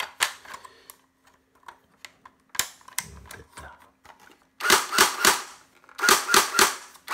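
Hapdong Science G3 SAS semi-electric airsoft gun dry-fired with no BBs loaded, each trigger pull cycling the piston and puffing air out of the muzzle with a sharp pop. Two quick strings of about four shots each come in the second half, after a few light clicks.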